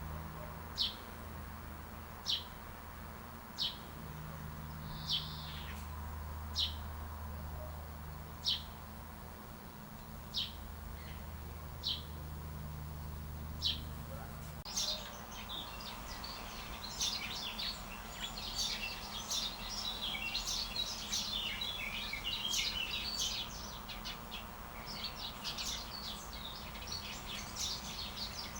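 A single bird repeats one short, sharp high chirp about every second and a half over a low steady hum. About halfway through this cuts suddenly to the dense, overlapping chirping and chattering of many birds.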